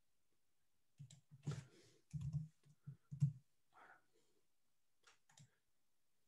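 Computer keyboard keystrokes and clicks: a quick cluster of taps between about one and four seconds in, then two lighter clicks a little after five seconds.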